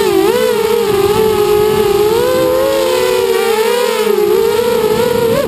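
FPV quadcopter's motors and propellers whining, heard close from the onboard camera, the pitch rising and falling with the throttle and at times splitting into several close tones as the motors run at different speeds. The whine breaks off abruptly at the very end.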